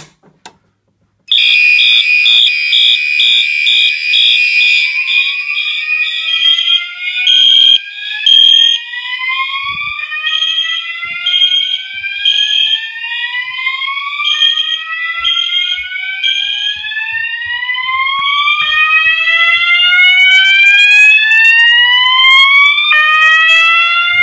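A fire alarm pull station clicks as it is pulled, and about a second later the whole fire alarm system goes into alarm at once, loud. Horns sound in steady and pulsing tones. From about four seconds in they are joined by a slow-whoop signal whose rising sweeps repeat every few seconds.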